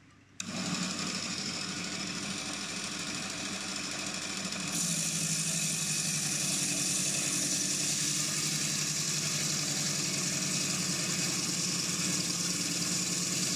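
Gryphon water-cooled diamond bandsaw starting up about half a second in and running steadily. About five seconds in, a higher, louder grinding hiss joins as the diamond blade cuts into an Acanthastrea coral skeleton.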